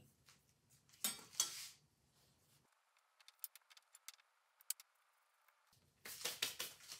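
Quiet kitchen handling: a metal spatula set down on the countertop with a short clatter about a second in, then a wooden rolling pin rolling out dough on the floured counter, with faint ticks and a louder run of knocks and rubs near the end.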